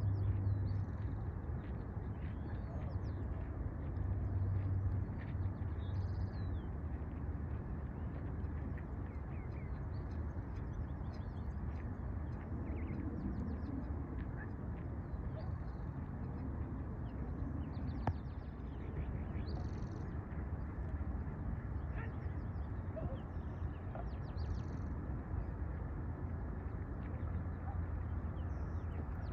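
Birds calling, with many short high chirps scattered throughout, over a steady low rumble.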